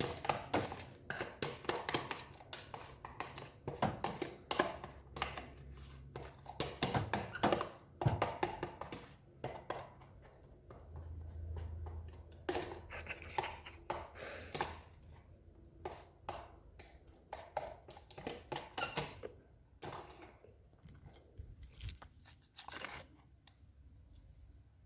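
Hand-handling noises of making a sandwich: irregular taps, clicks and rustles of food, packaging and utensils, in a small room.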